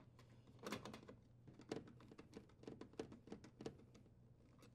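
Faint, quick light clicks and taps, several a second, from a dishwasher's sheet-metal junction box cover and its screw being handled, fitted and secured.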